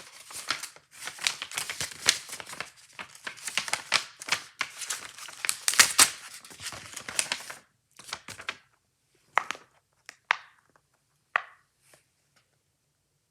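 Plastic packaging crinkling and tearing as it is handled and opened. About seven seconds in the rustling stops, and a few separate short clicks or taps follow.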